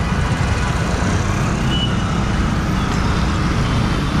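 Motorcycle running and moving off amid city road traffic, a steady dense rumble, with a short high beep about two seconds in.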